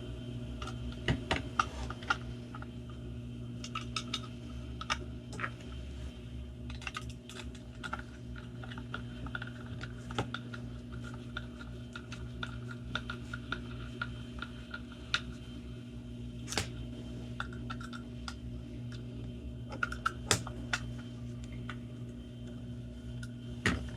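Scattered small clicks and taps of a Torx screwdriver and screws working into the plastic housing of a VDO tachometer gauge during reassembly, over a steady electrical hum.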